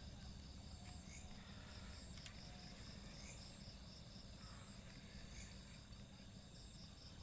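Night insects calling faintly: a cricket-like chirp pulsing evenly about three to four times a second over a steady high trilling.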